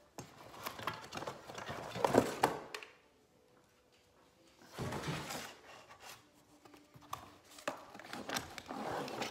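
Cardboard box and packaging rustling, with knocks and clicks of plastic parts, as a revolving Christmas tree stand is unpacked. Two busy spells of rustling and clatter are split by a quiet pause of about two seconds.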